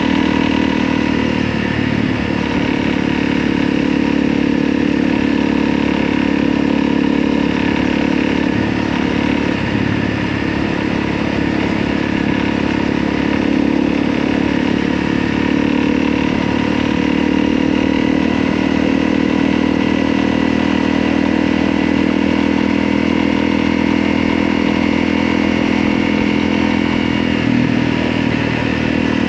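Motorcycle engine running at a steady pace, its pitch drifting only slightly.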